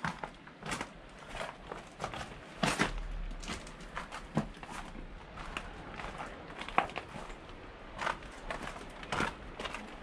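Footsteps of a person walking, irregular steps about one a second.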